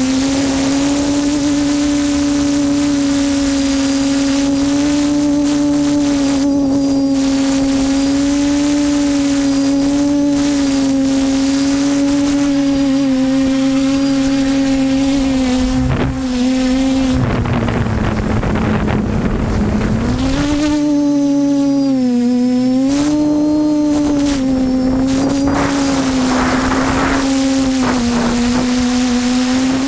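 TBS Discovery quadcopter's brushless motors and propellers, heard from the onboard camera: a steady, loud whine that wavers in pitch with the throttle. About halfway through, the whine drops lower for a few seconds under a rush of noise, then rises back to its cruising pitch.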